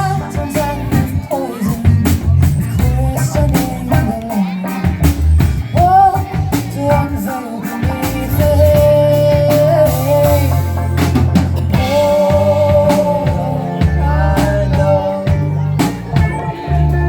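A band playing a song: a drum kit keeps a steady beat under bass, with a held sung melody line from about halfway through.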